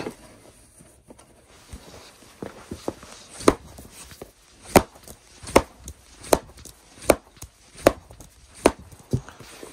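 A baseball being slapped into the pocket of a ZETT ProStatus leather catcher's mitt over and over, a sharp leather pop about every 0.8 seconds, seven in all, starting about a third of the way in. It is the mitt being tried out, its cross-lock web freshly relaced.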